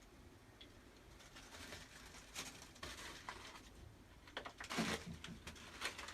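Faint, irregular clinks and scrapes from tending a household coal stove, growing busier after the first second, with the loudest knock about five seconds in.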